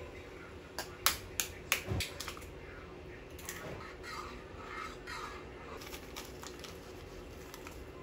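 Five quick, sharp taps of a metal utensil against the saucepan, followed by soft splashing as ingredients drop into the hot water.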